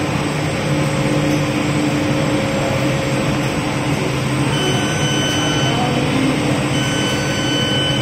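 Rubber extrusion and microwave vulcanization line machinery running with a steady, loud hum. A thin high whine comes and goes in the second half.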